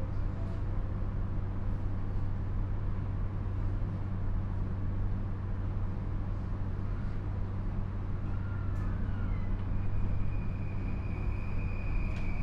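Inside the motor car of a JR East E235-series electric train: a steady low hum from the train's equipment. About ten seconds in, the Mitsubishi SiC VVVF inverter starts with a steady, high-pitched tone, the shrill asynchronous-mode sound heard as the train begins to accelerate.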